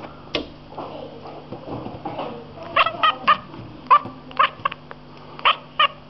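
Domestic cat chirping and chattering at seagulls through a window pane, the excited call of a cat watching birds it cannot reach. Softer, drawn-out mewing sounds come first, then a string of short, sharp chirps, three in quick succession about three seconds in and more near the end.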